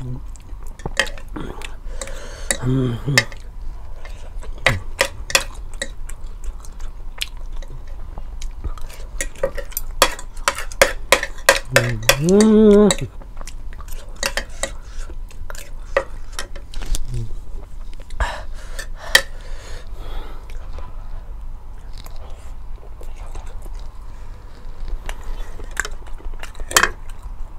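Eating utensils clicking and scraping against a bowl during a meal of spicy ramen, in many quick irregular taps, with some chewing. A brief voiced sound comes near 3 s and another near 12 s.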